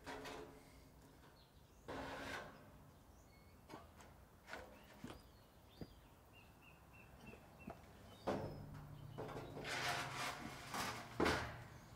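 Corrugated iron sheet being shifted and scraped against a timber frame: a burst of scraping and rattling about two seconds in, scattered clicks, then longer scraping in the last few seconds ending with a sharp knock. A small bird chirps a quick run of short notes around the middle.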